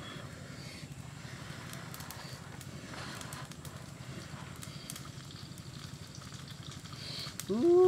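Wood fire burning under a pan with a faint steady crackle. Near the end comes a short, loud call that glides up in pitch and then holds, from a voice or an animal.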